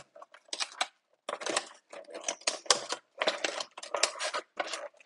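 Packaging of a trading-card collection box rustling and crinkling in short, irregular bursts with a few sharp clicks as the box is handled and opened.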